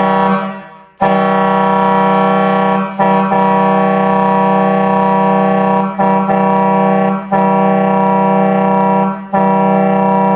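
Twin-trumpet 24V truck air horn fed by its electric compressor, blaring a steady low tone. It gives a short blast first, then a string of long blasts of one to three seconds each, separated by brief breaks.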